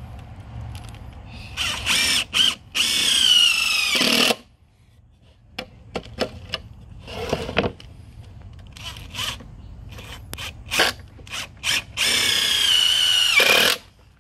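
Cordless drill driving screws into pine boards: two runs of a couple of seconds each, the motor's whine dropping in pitch near the end of each, with short trigger bursts and clicks in between.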